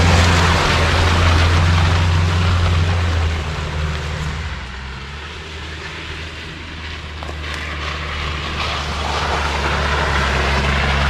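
An off-road 4x4's engine running with a steady low drone and road noise. It grows quieter for a few seconds midway, then louder again.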